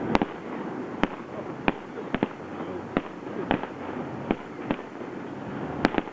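Aerial firework shells bursting: a string of about ten sharp bangs at uneven intervals, the strongest near the start and one near the end, over a continuous low rumble.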